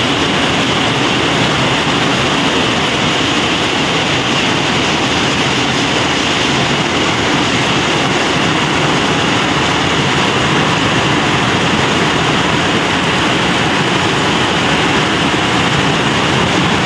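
Heavy rain pouring down onto a concrete rooftop and nearby roofs: a loud, steady hiss of rain.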